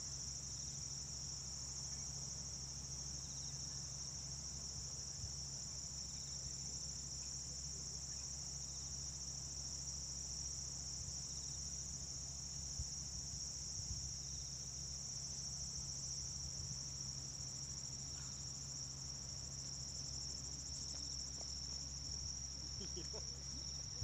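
Steady, continuous high-pitched trilling of singing insects in the grass, unbroken throughout, over a low steady rumble.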